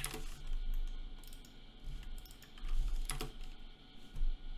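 A few scattered keystrokes on a computer keyboard, as a dimension value is typed in, over a steady low hum.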